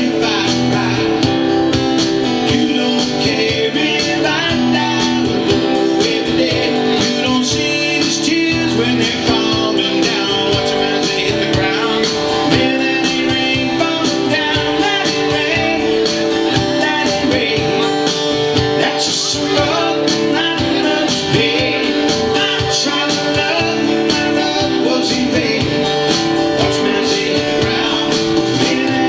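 Acoustic guitar strummed steadily with a man singing into a microphone: a live solo song performance.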